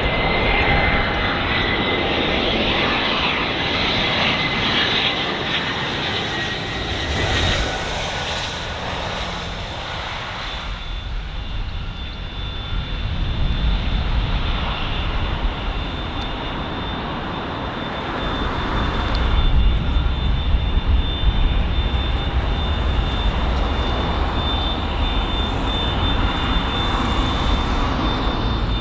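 Bombardier Global 6000 business jet's twin Rolls-Royce BR710 turbofans through a touch-and-go: a steady turbine whine over jet noise on approach, quieter while the jet rolls on the runway, then spooling up to takeoff power about two-thirds of the way through, with a deep rumble as the jet climbs away.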